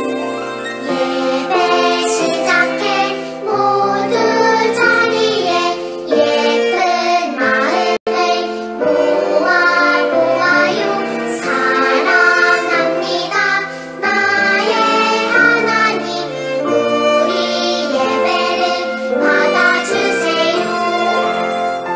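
A Korean children's worship song, sung over an instrumental backing, with a momentary dropout in the sound about eight seconds in.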